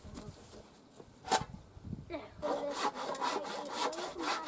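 Hand saw cutting through a timber board, with even back-and-forth strokes about three to four a second starting about two and a half seconds in. A single sharp knock comes just before the sawing.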